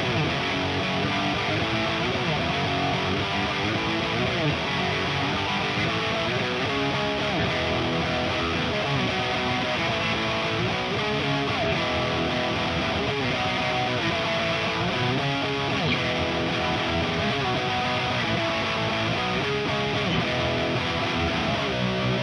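Kramer Baretta Special electric guitar with a Seymour Duncan DDJ bridge pickup, played through a Diezel VH4 tube amp head into a 4x12 cabinet with Celestion speakers. It plays a continuous distorted passage with frequent bends and slides.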